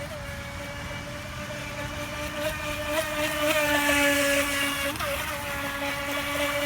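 Electric RC speedboat motor running with a steady high whine, growing louder about halfway through as the boat comes closer or speeds up.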